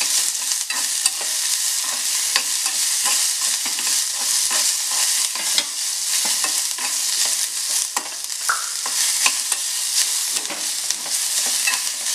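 Sliced onions and green chilli sizzling in oil in a metal kadai, stirred with a spatula that scrapes and taps against the pan many times. The onions are being sautéed until just softened.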